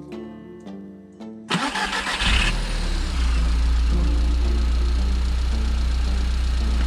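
Car engine cranked by its starter, catching about a second and a half in and settling into a steady idle.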